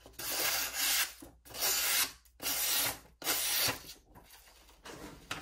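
Freshly sharpened WoodRiver No. 5-1/2 bench plane iron slicing through a sheet of paper as a sharpness test: about five quick strokes, each a dry hiss under a second long, then fainter paper rustling near the end.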